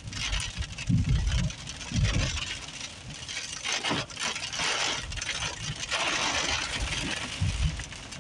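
Car driving on a wet road in rain, heard from inside the cabin: a steady hiss of tyres and rain on wet pavement that swells in the middle as an oncoming car passes. A few low thumps come about a second and two seconds in and again near the end.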